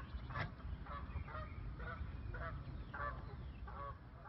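Geese honking over and over, about two calls a second, over a steady low rumble.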